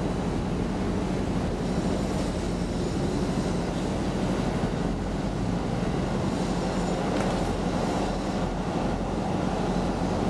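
Steady low rumbling background noise with a faint hum, and faint high thin tones coming and going twice.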